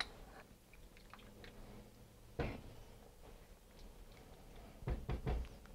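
Faint kitchen handling sounds: a single knock about two and a half seconds in, then a few quick knocks and scrapes near the end as a spatula stirs soup in a stainless steel saucepan.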